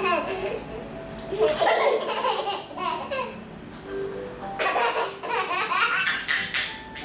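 Baby laughing out loud in two bouts, one about a second and a half in and another near five seconds in.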